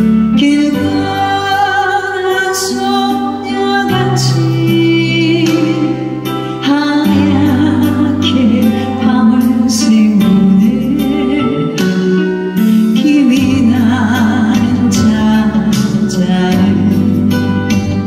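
A woman sings a Korean song into a microphone over instrumental accompaniment with a sustained bass line and light percussion, holding long notes with vibrato.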